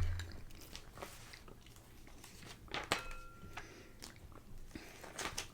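Small, scattered clicks and rustles of plastic Lego pieces being handled and sorted, with a sharper click about three seconds in. Just after it comes a faint short beep-like tone.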